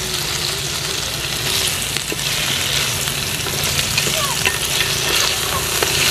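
Frog pieces, pickled bamboo shoots and fresh betel leaves sizzling steadily in hot oil in an aluminium pot, with a few light clicks of wooden chopsticks stirring them.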